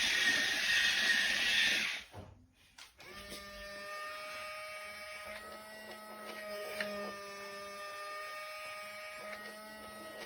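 Toy RC excavator's small electric gear motors running with a steady whine. About two seconds in the sound breaks off abruptly from a louder, noisier run to a quieter, steady whine with a faint pulsing low note.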